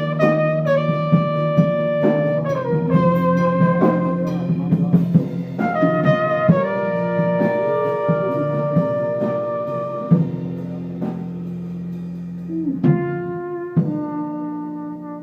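Brass music led by trumpet, with a drum kit: long held notes that step to new pitches every second or two over steady drum hits.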